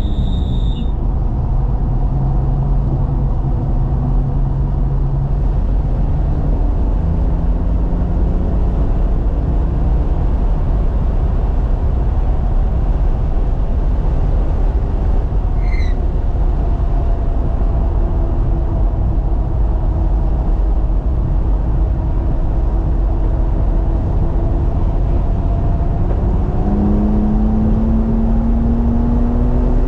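In-cabin sound of a 2018 BMW M3 Competition's twin-turbo inline-six at track speed, under heavy road and tyre noise. The engine note rises and falls as the car runs between corners, then climbs steadily under acceleration near the end. A short high chirp comes about halfway through.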